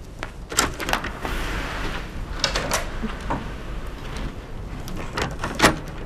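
Outdoor ambience with a steady low rumble and a scattered series of sharp clicks and knocks, mostly in close pairs, the loudest near the end.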